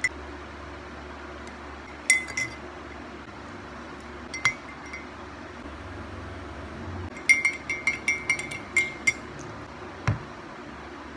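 A spoon clinking against a glass mug as a milk drink is stirred: a few separate ringing clinks, then a quick run of clinks about seven seconds in, and one more near the end.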